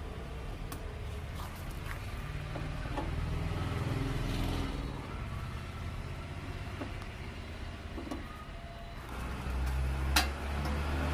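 Screwdriver clicking faintly as it backs screws out of a cassette deck's sheet-metal cover, over a steady low rumble. About ten seconds in, a single sharp metallic clack as the cover is lifted off.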